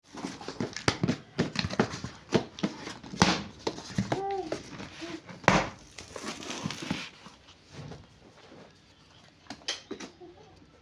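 Packaging being handled: crinkling and rustling with scattered clicks and knocks, busiest for the first seven seconds, then dying down to a few faint clicks.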